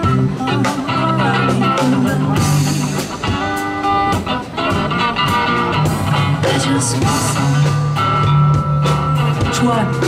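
Live band jam: an electric bass guitar plays a walking, rhythmic line locked in with a drum kit, in a loose improvised groove with melodic notes over it.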